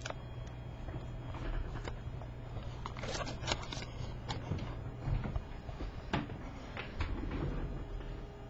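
Light paper rustling and scattered soft taps and clicks from handling and dropping a small folded paper helicopter, over a steady low hum.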